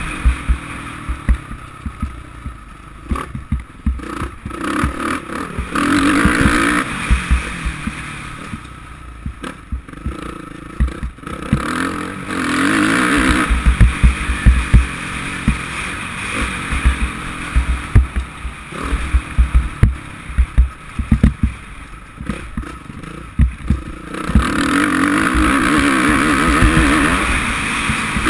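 Suzuki RM-Z450 four-stroke single-cylinder motocross engine running on and off the throttle in bursts, with louder stretches about six seconds in, around twelve to fourteen seconds in, and near the end. Wind buffets the microphone with repeated low thumps.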